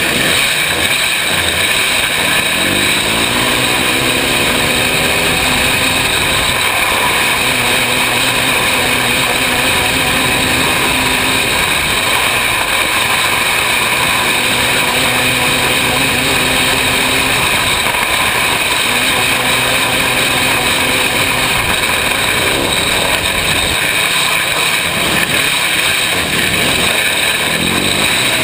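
Engine of a winged 500cc micro sprint car at racing speed, heard from the cockpit over steady rushing noise. Its pitch climbs several times as it accelerates and holds steady in between.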